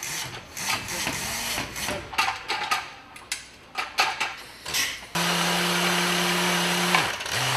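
Metal clanks and knocks as a steel lifting beam is handled against a bomb body. Then, about five seconds in, an overhead hoist motor runs steadily for about two seconds and winds down as it stops.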